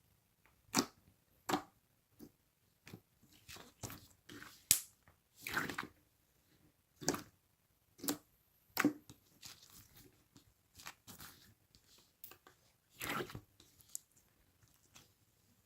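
Slime being squeezed and pressed: irregular short squelches and crackly pops, some sharp and loud, in uneven bunches.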